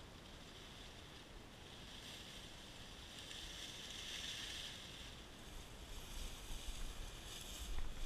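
Dry, tall grass stalks rustling and brushing as someone walks through the field, with wind buffeting the microphone. The rustle swells about halfway through and turns choppier near the end.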